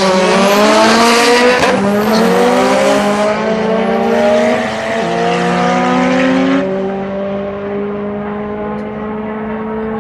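Two cars, one an Audi S2 with its turbocharged five-cylinder, launching off a drag strip start line and accelerating hard. The engine notes rise through the gears, dropping at gear changes about two and three seconds in, then fade as the cars run away down the strip.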